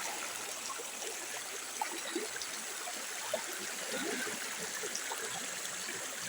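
Steady rush of flowing water, as from a stream swollen with rainwater, with faint small splashes through it.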